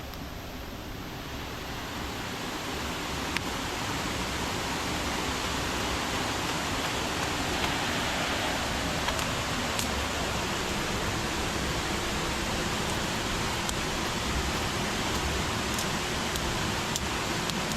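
Rushing water of a waterfall: a steady hiss that grows louder over the first few seconds and then holds, with a few faint clicks.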